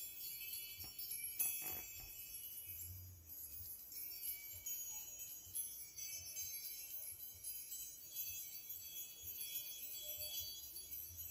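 Faint, steady tinkling of wind chimes: a continuous shimmer of many high, bell-like tones, with a few soft knocks a second or two in.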